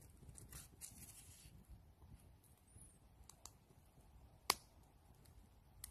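Faint crackling and ticking of a small wood campfire, with one sharp pop about four and a half seconds in.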